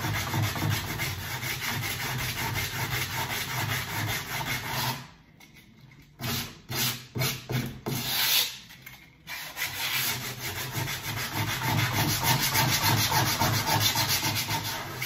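40-grit sandpaper on a hand sanding block rubbed back and forth along a snooker cushion's wooden rail in rapid scraping strokes, smoothing out rough rasp marks. The sanding stops about five seconds in, comes back as a few short separate strokes, then runs steadily again.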